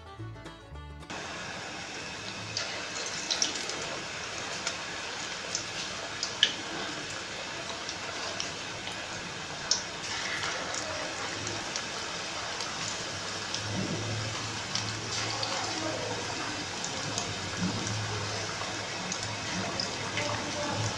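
Pakora batter deep-frying in hot oil in an aluminium karahi: a steady sizzle, starting about a second in, with scattered pops and a few sharp clicks.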